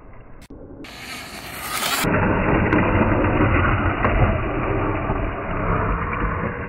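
Traxxas 4-Tec VXL radio-controlled car driving and sliding on asphalt. Its brushless motor and tyres make a noisy rush, quieter at first and becoming loud and steady about two seconds in.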